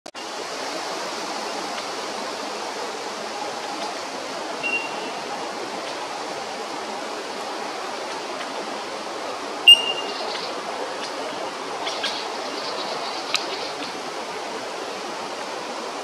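A steady rushing noise, with a few brief high calls over it and one sharp click with a short high note nearly ten seconds in, the loudest moment.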